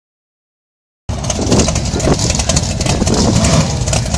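BriSCA F1 stock car V8 engines running, a loud, steady, rough engine noise that cuts in abruptly about a second in.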